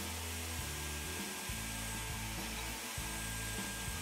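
CNC router spindle running at an estimated 18,000 RPM, its bit cutting a shallow pass into an oak board at a steady pitch and level, with background music and a changing bass line over it.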